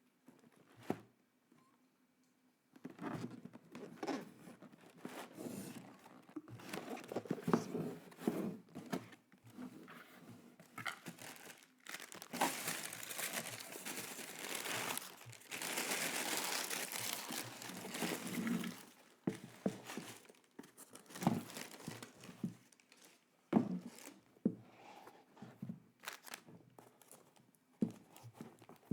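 Packaging being handled and opened: crinkling and rustling that comes and goes, busiest and most continuous in the middle, with scattered sharp clicks and knocks.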